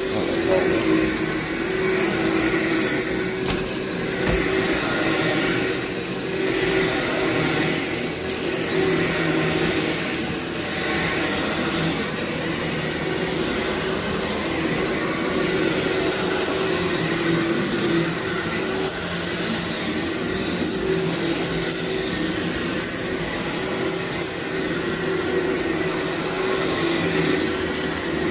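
Vacuum cleaner running steadily over carpet, its motor holding a constant hum.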